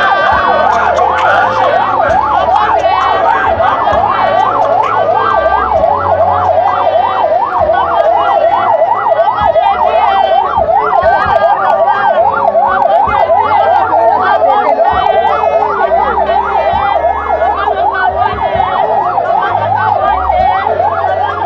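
Several sirens sounding at once, a fast up-and-down yelp over a slower wail, amid crowd noise.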